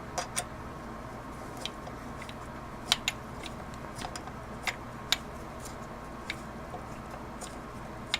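Scattered small metallic clicks and taps of an Allen key and BMX rear dropout hardware being handled and tightened in the frame, irregularly spaced and loudest about three and five seconds in, over a steady low room hum.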